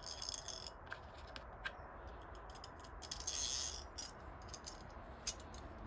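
Faint small metallic clicks and clinks as a thrust washer is slid onto a steel Acme-threaded leadscrew and handled, with a brief rubbing sound about three seconds in.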